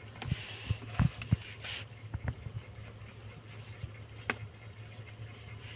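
A kitten chewing plain rice off a tiled floor: soft, irregular chewing clicks and smacks, one sharper click about four seconds in, over a steady low hum.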